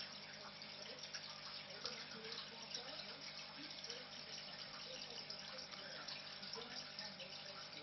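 Water running and splashing steadily in a turtle aquarium, typical of a filter's return flow pouring into the tank.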